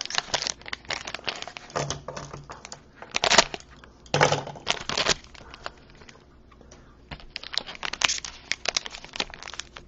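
Plastic trading-card pack wrapper crinkling and rustling as it is handled and torn open, in irregular crackles with a quieter stretch in the middle.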